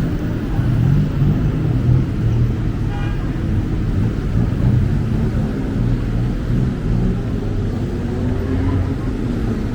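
Road traffic on a busy city street: motor vehicle engines running close by in a steady low rumble, with a brief high tone about three seconds in.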